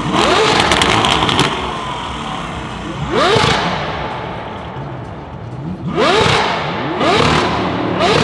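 A performance car's engine being revved in short sharp blips, the pitch sweeping quickly up each time: five blips, roughly three seconds apart at first, then closer together near the end. Sharp crackles and pops ride on the first rev.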